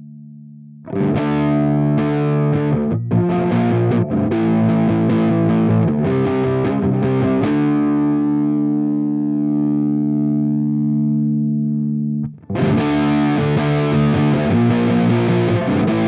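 Electric guitar played through a DIY Model T JFET amp-emulator distortion pedal, a sludge-metal tone. A quiet held note gives way about a second in to loud distorted riffing of choppy chords. A chord is then left to ring for several seconds, and the riffing starts again about three-quarters of the way through.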